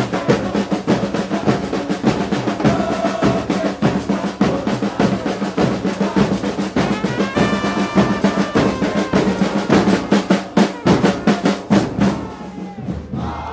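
Supporters' marching drum line of snare and bass drums beating a fast, steady rhythm, with the marching crowd shouting along. The drumming thins out about twelve seconds in.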